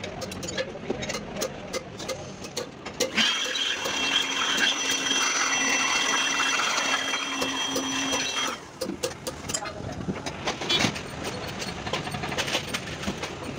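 A hand-held power tool working in a valve port of a diesel cylinder head runs steadily for about five seconds, starting about three seconds in and stopping abruptly, with a steady whine. Light clicks and taps of metal work on the head come before and after it.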